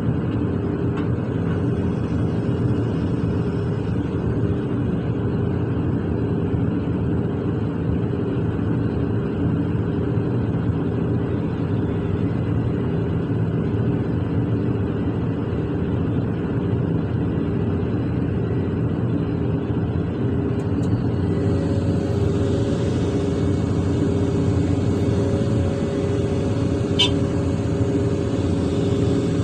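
Large hydraulic excavator's diesel engine running steadily under work, heard from inside the operator's cab. About two-thirds of the way through, a higher hiss and a steady whine join the drone, with one short click a few seconds later.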